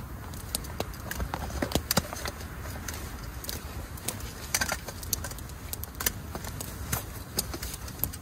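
Campfire of small sticks crackling, with sharp irregular pops over a low steady rumble.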